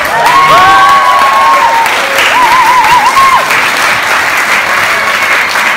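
Theatre audience applauding loudly, with a few high, wavering cheers over the clapping in the first few seconds.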